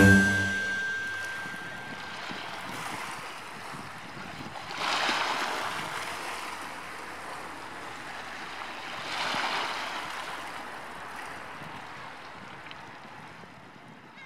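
Sea waves washing onto the shore, a steady wash with two louder swells about five and nine seconds in, fading out at the end.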